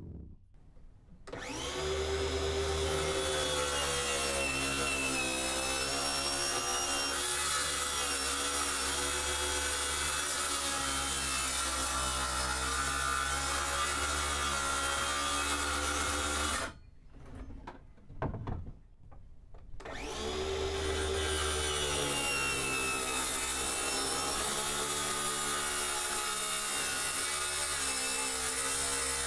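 DeWalt cordless circular saw cutting plywood in two long cuts, each starting as the saw comes up to speed. A pause of about three seconds separates the cuts.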